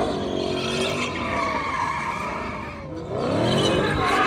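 A Hemi V8 car drifting, its tires skidding under the engine note. The revs sag over the first few seconds, then climb hard again about three seconds in.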